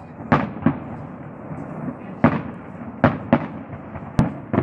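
Aerial firework shells bursting: a string of about seven bangs at uneven intervals. One near the end is a sharper, crisper crack than the rest.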